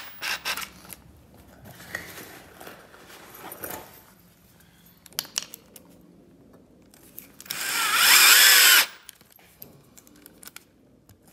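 Cordless drill-driver driving a wood screw through a steel door hinge into plywood: one run of about a second and a half near the end, its motor pitch wavering under load. Before it, quiet clicks and handling of screws and parts.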